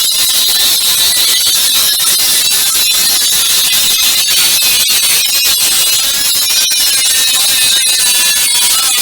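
Angle grinder working on steel: a loud, steady, high-pitched screech with a wavering whine.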